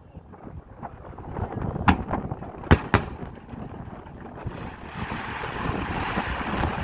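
Aerial fireworks shells bursting with sharp bangs over a low rumble: one about two seconds in, then two in quick succession just before three seconds. A rising wash of noise fills the second half.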